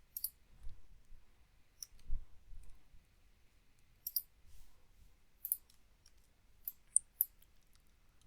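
Computer mouse clicking: about seven short, sharp clicks spread irregularly, two or three of them in quick succession near the end.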